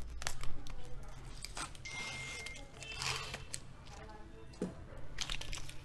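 Scissors cutting through the sealed card folder of a credit card welcome kit: a series of sharp snipping clicks, with a longer rustling cut about two to three seconds in.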